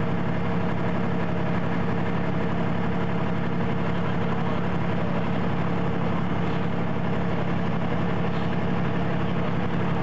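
An engine running steadily, a constant even drone that neither rises nor falls.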